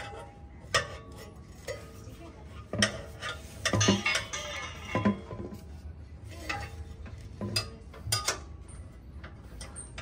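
Metal pry tool clinking and knocking against a steel exhaust pipe and its hanger bracket while the rubber exhaust hangers are pried loose: irregular sharp knocks, some with a brief metallic ring.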